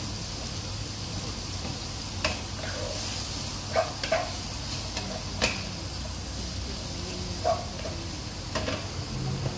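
Wooden spatula stirring chayote strips and prawns in a nonstick wok, with about seven sharp knocks against the pan, over a steady frying sizzle.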